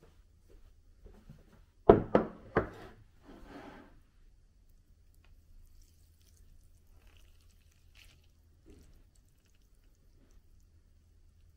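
A ceramic bowl and dishes are set down on a wooden table with three sharp knocks about two seconds in, followed by a brief scuffing sound. After that come only faint clicks of wooden chopsticks lifting noodles from the bowl.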